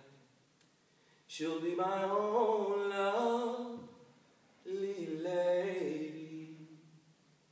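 Unaccompanied male voice singing in the Irish sean-nós style: two long phrases of held notes that waver and bend in pitch, the first starting about a second in and the second following a short breath, fading near the end.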